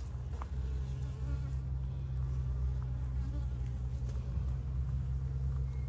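A colony of honeybees buzzing around an opened hive: a steady, low, even hum.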